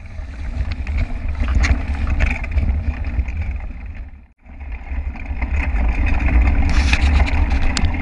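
Wind noise from riding, heavy and low, on the microphone of a bike-mounted action camera as a mountain bike rolls over a dirt road, with many small knocks and rattles from the bike over the bumps. The sound drops out briefly about four seconds in, then comes back.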